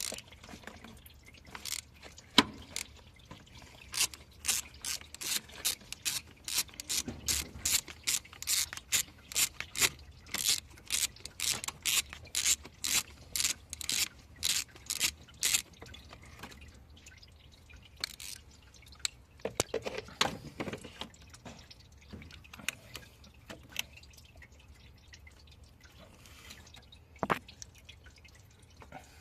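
Liquid dripping, a quick regular run of drops for about twelve seconds, then only a few scattered drops.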